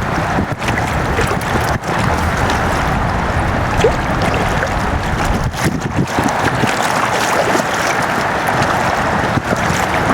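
Wind buffeting the microphone over a steady wash of moving water.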